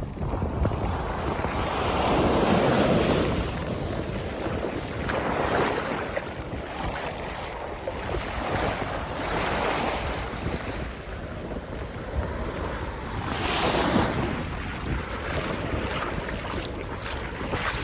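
Pacific Ocean surf breaking on a beach, with several waves surging in a few seconds apart, and wind rumbling on the microphone.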